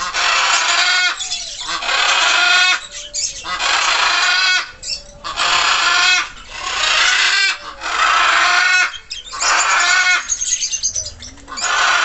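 A flock of budgerigars chattering and warbling, in repeated bursts of about a second with short pauses between.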